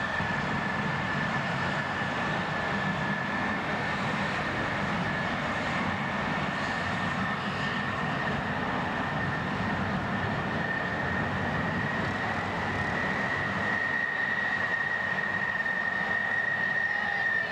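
F-14 Tomcat jet engines running as the fighters taxi: a steady high whine over a broad rushing noise, the whine edging slightly higher a little after the middle.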